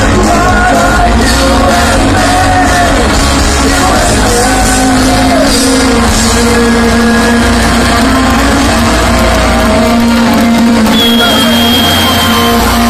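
Live punk rock band playing loud, with vocals over the guitars and drums.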